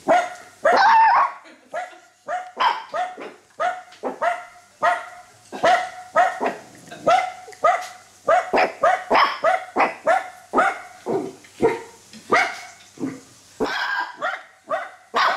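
A dog barking over and over in a long run of short, sharp barks, about two a second, with no let-up.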